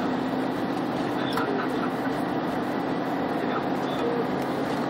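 Steady vehicle running noise with a constant low hum, unchanging throughout.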